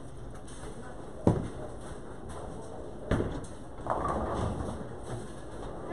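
Bowling alley noise: two sharp crashes about two seconds apart, then a short clatter, over a steady low rumble of balls rolling down the lanes.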